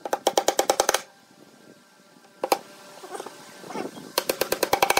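Claw hammer driving nails into a pine board: a fast run of about ten sharp strikes in the first second, a single blow midway, and another fast run of strikes near the end.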